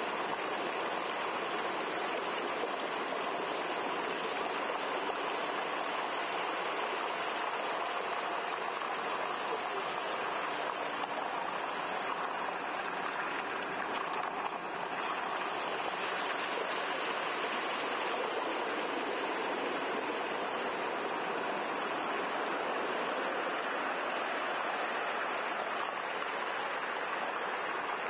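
Car tyre driving through shallow floodwater over a road: a steady splashing hiss of water thrown up by the wheel.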